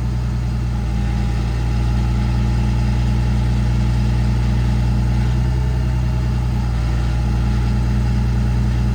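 Kenworth T370's PACCAR PX-6 diesel engine running steadily at raised idle, driving the PTO hydraulic pump that powers the crane.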